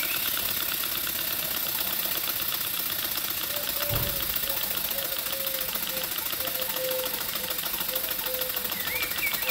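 Cotswold Heritage Perseus model steam engine, a single-cylinder horizontal engine, running fast on live steam: a rapid, even mechanical ticking of its exhaust beats and moving parts. A single low thump comes about four seconds in.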